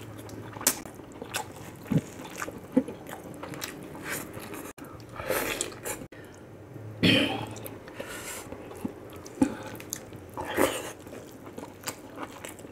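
Close-miked eating: a man chewing boiled pork and pork rib meat pulled off the bone by hand, with many wet lip-smacks and mouth clicks. There are a few longer slurping sounds, about five, seven and ten and a half seconds in.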